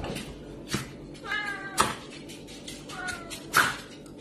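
Serval calling: two wavering, meow-like calls, each ending in a sharp, loud burst, with a shorter burst about a second in.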